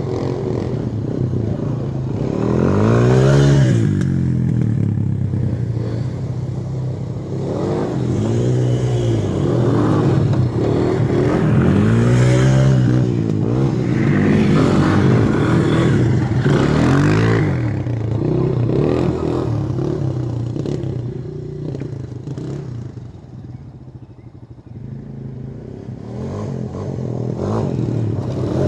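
Four-wheeler (ATV) engine revving up and falling back again and again as it is ridden. It goes quieter for a few seconds near the end.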